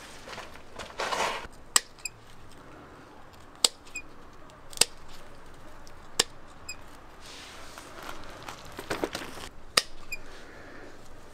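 Hand pruning shears snipping through tomato stems: five sharp snips a second or more apart, with rustling of the tomato vines being handled.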